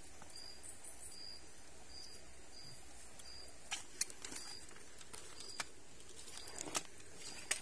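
An insect calling in a steady series of short, high chirps, a little under two a second. A few sharp clicks and taps of fishing gear being handled come in the second half.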